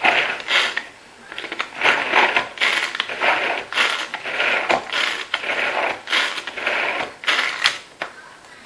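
Hand-operated food chopper mincing vegetables: a ratcheting whirr of its spinning blades, worked in a dozen or so quick strokes about one and a half a second.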